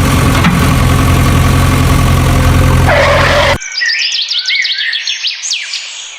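A vehicle engine runs steadily with a low, even drone, then cuts off abruptly about three and a half seconds in, giving way to a string of quick, high falling squeaks.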